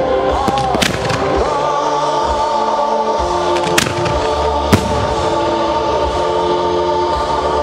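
Music with long held notes plays throughout a fireworks display, with firework shells going off over it as sharp bangs: one about a second in, another near four seconds, and the loudest a second later.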